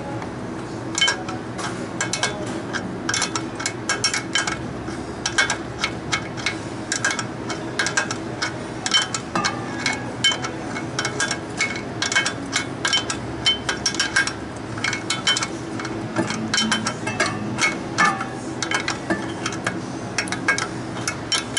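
Irregular sharp metallic clicks and taps, at times several a second, from hand tools working at the top of a beer cooler's compressor, over a steady low hum.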